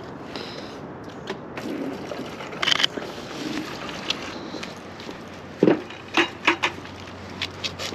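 Steady low background noise with scattered sharp clicks and knocks: a couple a little under three seconds in, the loudest cluster of about four between five and a half and seven seconds, and a few fainter ones near the end.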